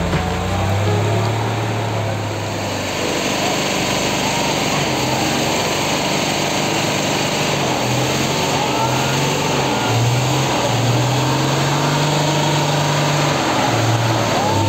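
A vehicle's engine running under load as it is hauled by rope out of deep mud on a steep slope, its pitch rising and falling as it revs.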